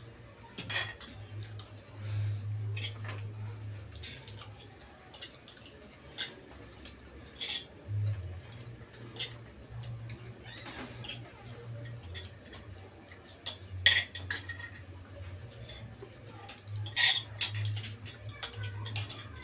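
Spoons and forks clinking and scraping on plates as several people eat, with scattered sharp clinks, the loudest about 14 seconds in, over a low steady hum.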